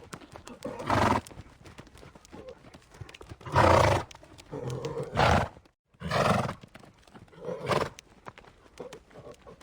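Horses: hooves clopping in a steady run of small clicks, with a horse giving five loud, short, breathy calls. A brief cut to silence comes just before the middle call.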